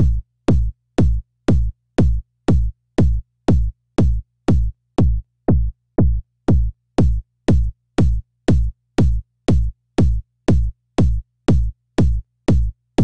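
Layered electronic kick drum: a sine-wave kick synthesized in Logic's ES2 played together with a sampled kick whose low end is cut by an EQ, looping steadily at about two hits a second. Each hit sweeps quickly down in pitch from a short attack into a deep low end.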